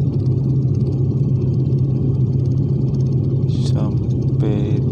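Steady low drone of a jet airliner's cabin in flight, from engine and airflow noise. A short voice sound comes through near the end.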